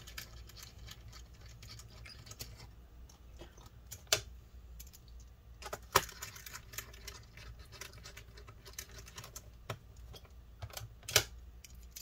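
Small scattered clicks and taps of a precision screwdriver and screws against a laptop's plastic bottom cover as the screws are driven back in, with a few sharper clicks about 4, 6 and 11 seconds in.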